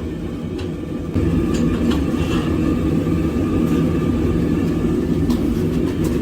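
Forge burner running with a steady low rumble that grows louder about a second in, with a few faint clicks.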